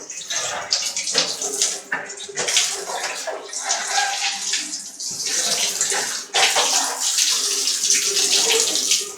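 Running water splashing on plastic air-conditioner parts as they are rinsed, uneven at first and then steadier and louder from about six seconds in.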